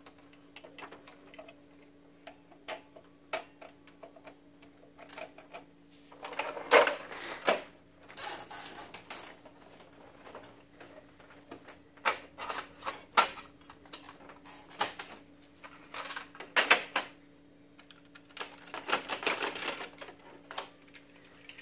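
Plastic and metal parts of an HP M601 laser printer being handled: irregular clicks, knocks and rattles as rollers are fitted, the printer is shifted, and the fuser is pushed into its bay near the end, over a faint steady hum.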